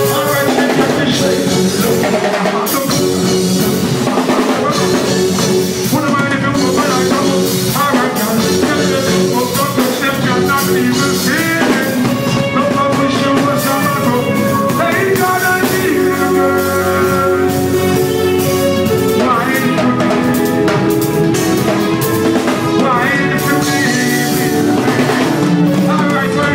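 Loud live band music with drum kit playing throughout.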